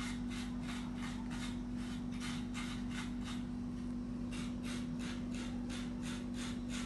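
Rhythmic rasping or scraping strokes, about three a second, stopping for about a second midway and then going on, over a steady low hum.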